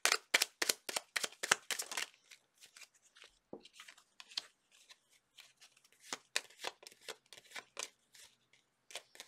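A deck of tarot cards is shuffled by hand: a quick, even run of card slaps, about four a second, for the first two seconds. After that come scattered, softer clicks and taps as cards are drawn and laid on the table.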